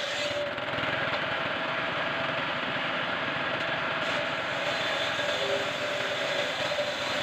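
Homemade table saw (resaw) running steadily with a held whine, its circular blade ripping a thin strip of wood lengthwise.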